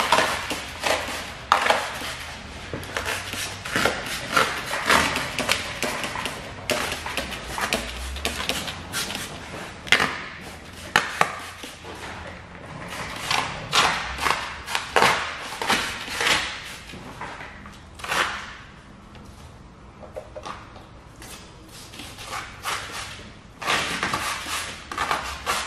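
Hand trigger spray bottle squirting slip solution in many quick, irregular squirts, mixed with the crinkle of plastic protection film being peeled back and handled. There is a quieter stretch about three-quarters of the way through.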